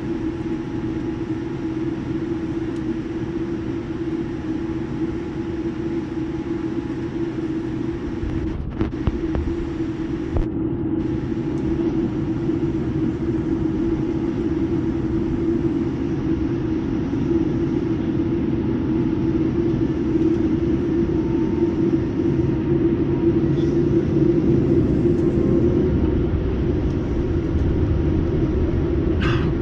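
Boeing 787-9 Dreamliner engine and airframe rumble heard from inside the passenger cabin: a steady deep drone with a humming tone, growing gradually louder.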